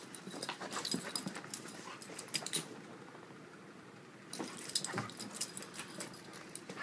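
A pit bull spinning after her tail: a quick, irregular run of clicks and scuffles from her moving about, easing off for a moment partway through before starting again.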